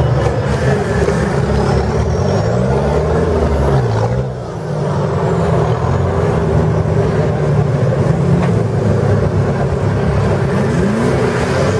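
Off-road 4x4 trial vehicle's engine under load, revving up and down repeatedly as it works an obstacle, with a brief lift-off and drop in revs about four seconds in.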